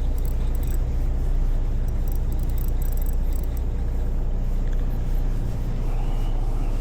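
A boat's engine running steadily with a low hum.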